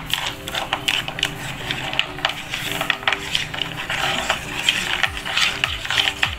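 A small spoon clicking and scraping against a nonstick pan as hollow plastic balls are rolled through thick chocolate ganache, with rapid, irregular clicks as the balls knock together.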